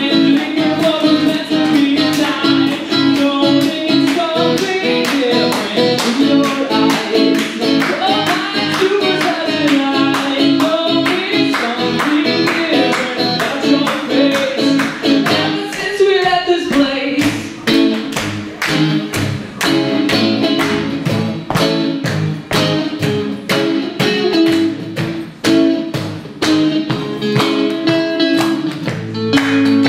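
Steel-string acoustic guitar strummed in a steady rhythm, with a man singing over it at times.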